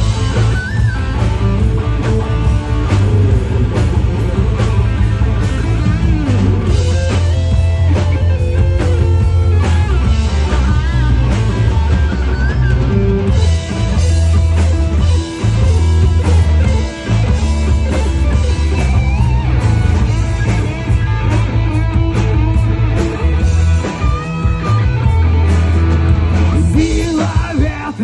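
Rock band playing live through an instrumental passage: guitar lines with bending notes over a steady bass and drum kit.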